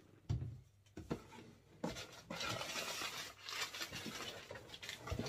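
A plastic shaker cup set down on a shelf with a low knock, then a cardboard shipping box handled and searched through: scraping and rustling of cardboard with a few knocks.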